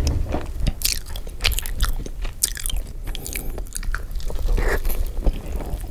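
Close-miked eating: a person bites into a slice of cheese pizza and chews it, with irregular crunches and mouth clicks.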